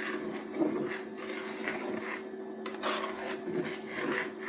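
Metal spoon stirring a watery lentil and turnip curry in an aluminium pot: soft irregular swishing and scraping of liquid and spoon, over a steady low hum from the electric cooktop.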